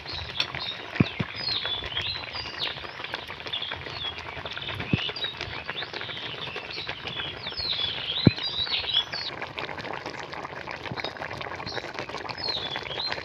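Small birds chirping repeatedly in short rising and falling calls, over the steady crackle of curry bubbling in an open wok. A few isolated sharp clicks.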